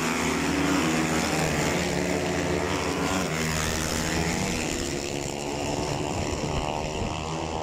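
A pack of supermoto motorcycles racing past and away down the straight, several engines revving at different pitches, their pitch rising and dropping with gear changes. The sound is loudest at first and eases off as the bikes draw away.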